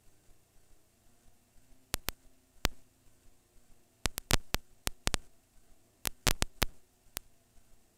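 A near-silent recording broken by about a dozen sharp, irregular clicks, some single and some in quick clusters, about two, four to five, and six seconds in.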